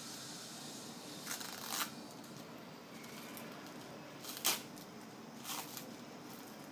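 A faint steady hiss with three brief scraping, rustling handling noises: one about a second in, the loudest about four and a half seconds in, and a last one shortly after.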